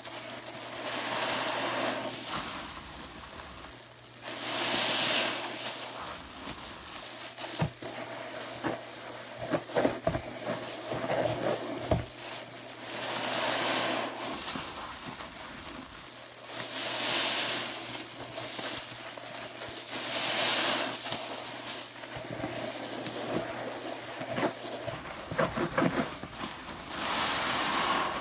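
Yellow sponge soaked in thick soap lather, squeezed and kneaded by hand: wet squelches and the hissing crackle of foam bubbles, swelling with each squeeze about every three to four seconds.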